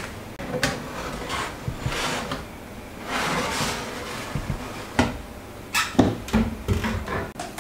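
Metal baking tray clattering and scraping as it goes into an oven, then the oven door knocking shut with a few sharp bangs near the end.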